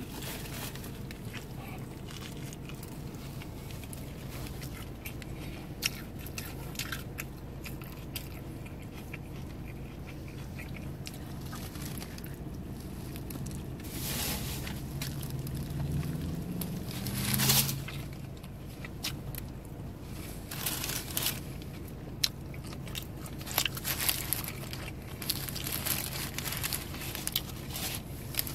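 Close-up eating sounds of a loaded sub sandwich: bites with crunching, and chewing, over a steady low hum. The bites come loudest about halfway through and again near the end.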